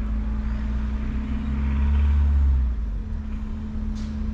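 An engine running steadily with a low hum, swelling louder about two seconds in and then easing back.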